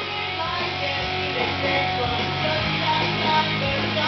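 Background music with guitar and a steady bass line.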